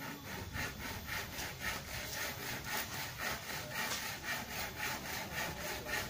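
Steady rhythmic scraping, about three strokes a second.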